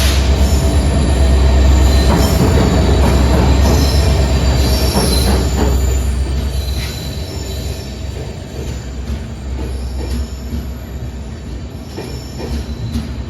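Express passenger train rolling alongside the platform as it arrives, coaches passing close with a heavy low rumble and high metallic squeals from the wheels. Loudest for the first six seconds or so, then quieter as it slows.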